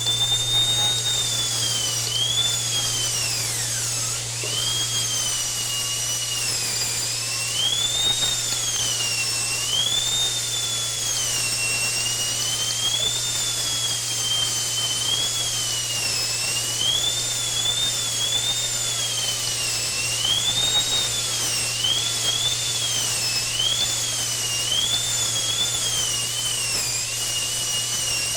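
A continuous high-pitched whine that swoops up and down in pitch every second or two, over a steady low hum.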